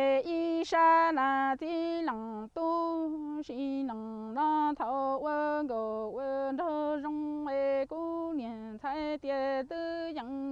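A woman singing Hmong folk song poetry (lug txaj, kwv txhiaj) solo and unaccompanied. One long phrase of held notes slides up and down between pitches, broken by brief pauses, and stops near the end.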